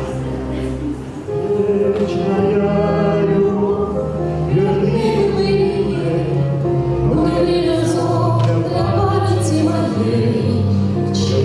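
Music with a choir singing sustained notes, the voices coming in about a second in.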